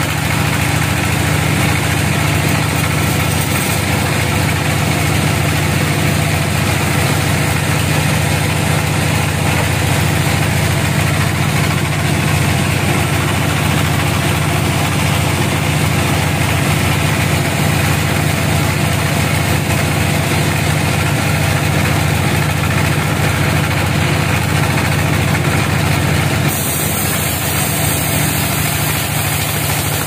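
Band sawmill running steadily, its blade cutting lengthwise through a small teak log: a constant low machine hum under a sawing hiss. The level drops slightly about 26 seconds in.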